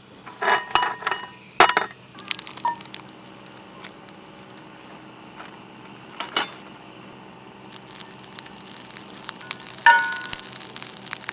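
Cast-iron skillet knocking against the metal pot supports of a gas camp burner as it is handled, several clanks in the first two seconds. From about eight seconds a faint sizzle of a fat cube melting in the hot pan, and about ten seconds in a spatula clinks and scrapes against the iron.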